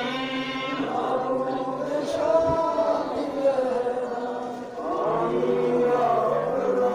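Male voices chanting a mourning lament together, in long sliding sustained notes, with a short dip about four and a half seconds in before the chant picks up again.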